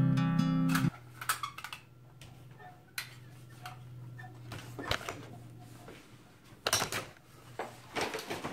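Acoustic guitar music cuts off about a second in; then a hand-squeezed manual staple gun fires staples through burlap into the room-screen frame, several sharp clicks, with a quick cluster near the end.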